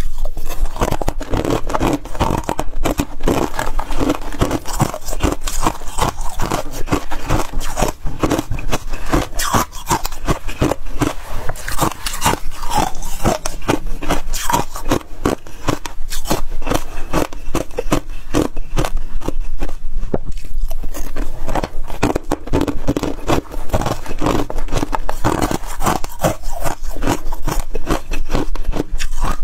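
Freezer frost being bitten and chewed close to the microphone: a dense, unbroken run of crisp crunches and scrapes.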